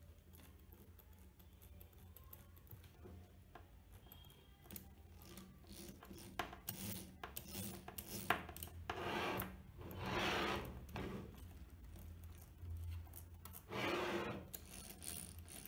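Small parts and tools being handled on a workbench: scattered clicks and taps, with three brief rubbing sounds about nine, ten and fourteen seconds in, the one at ten the loudest. A faint steady low hum runs underneath.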